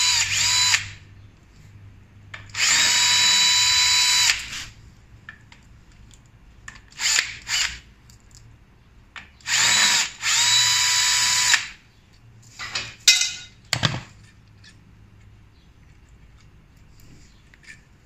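Cordless drill/driver spinning out the clutch pressure-plate bolts of a motorcycle engine. It runs in short whining bursts of about two seconds, each rising briefly in pitch as the motor spins up. The first burst ends just under a second in, with two more near the start and middle, and light metal clicks in the gaps between.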